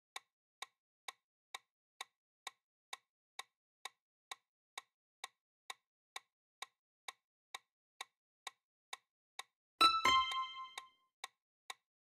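Clock-tick sound effect of a quiz countdown timer, about two ticks a second. Near the end a bright chime with a low thud rings for about a second, signalling that time is up and the answer is revealed.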